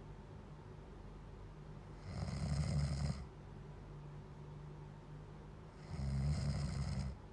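Snoring, really loud: two rough snores about four seconds apart, each lasting about a second, with quieter breathing between them.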